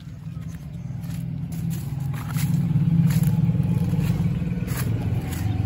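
An engine running with a low, steady rumble that grows louder about two seconds in, with light crunching and rustling of footsteps over dry stalks.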